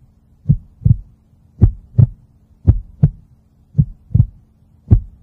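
Heartbeat sound effect: five double thumps, lub-dub, at a slow steady pace of a little under one beat a second, over a faint steady low hum.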